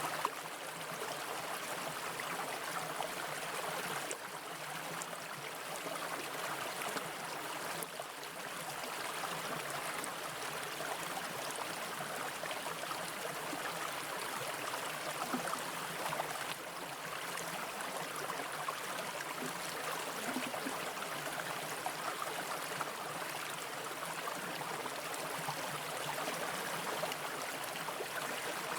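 Brook water running steadily over rocks, an even rushing and gurgling flow.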